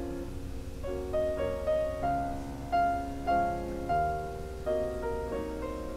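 Slow background piano music: a melody of single notes, each struck and fading, about one every half second.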